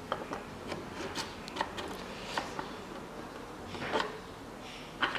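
Light clicks and short scrapes of a used steel piston ring being pressed by hand down into a Toyota Caldina 2.0 cylinder bore, the ring rubbing on the bore wall. A slightly longer rub comes about four seconds in. The ring is being set square in the bore to check its end gap.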